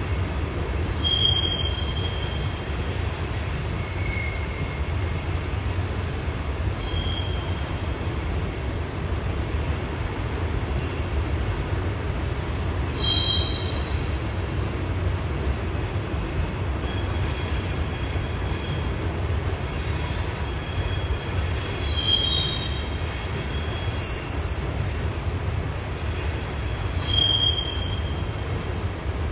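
CSX coal train rolling past, its cars making a steady low rumble. Brief high-pitched wheel squeals cut in about five times.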